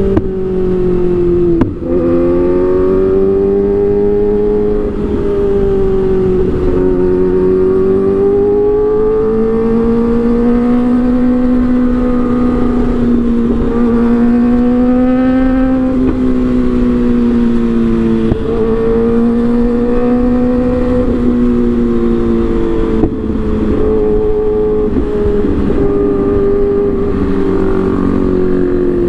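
Kawasaki ZX-25R's 250 cc inline-four running through an Arrow aftermarket exhaust at high revs, its pitch climbing and falling over several seconds at a time. There are a few brief breaks in the sound.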